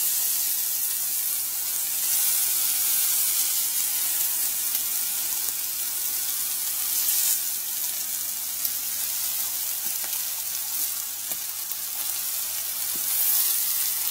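Bacon strips sizzling on the hot enamelled griddle plate of a Weber Q 1000 gas grill: a steady frying hiss with occasional faint pops of spattering fat.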